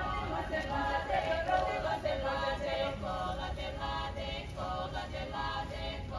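Choir singing, the sung phrases breaking every second or so.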